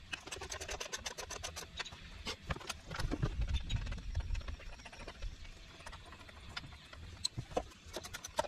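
Irregular light clicks and clinks of metal battery connector cables and terminal hardware being handled and fitted onto the posts of golf cart batteries, with a low rumble through the middle.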